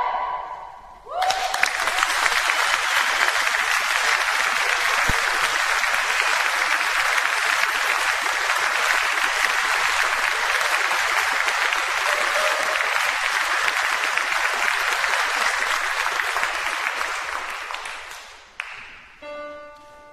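Mixed chamber choir's final a cappella chord cutting off about a second in, then a concert-hall audience applauding steadily for about seventeen seconds before it dies away. A few piano notes start near the end.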